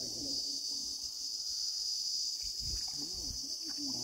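A chorus of insects shrilling steadily and high-pitched, with no pauses.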